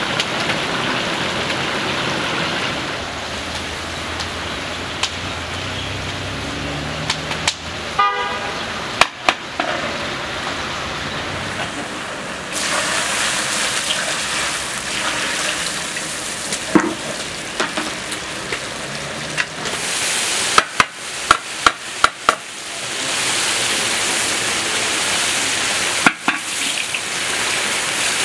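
Oil and food sizzling steadily in a large pot of Uzbek pilaf, growing louder partway through. A brief horn toot sounds about eight seconds in, and a quick run of sharp knocks comes a little past the middle.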